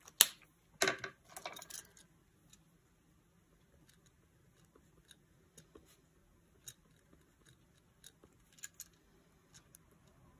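Planner supplies being handled at a desk: one sharp click and a short run of clicks and scrapes in the first two seconds, then scattered faint ticks and taps.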